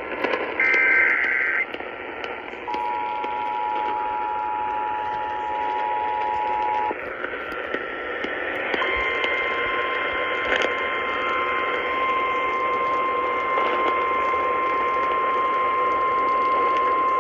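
Emergency Alert System tones received over AM radio, with static. The last burst of the digital SAME header warbles for about a second. At about 3 s the two-tone attention signal sounds for about four seconds. At about 9 s a single steady tone begins, the weather-radio warning alarm tone announcing a tornado warning, and holds to the end.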